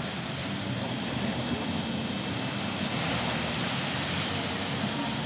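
Rough sea surf surging and breaking against a seafront embankment in a steady roar, swelling a little about three seconds in, with a low steady hum beneath.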